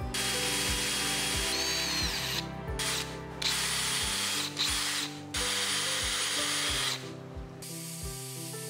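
Electric hand drill boring through a thin aluminium strip, with a thin high whine over the cutting noise. It stops and restarts abruptly several times, then falls away about seven seconds in, leaving soft background music.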